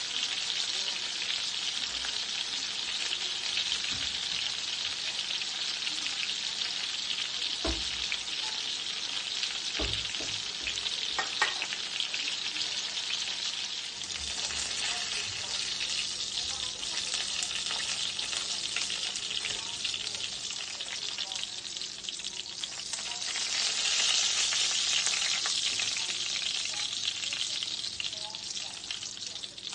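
Flour-coated chicken cutlets sizzling as they pan-fry in hot oil in a skillet, a steady crackling hiss. There are a couple of soft knocks about a third of the way in. The sizzle swells louder about three-quarters of the way through, then eases near the end.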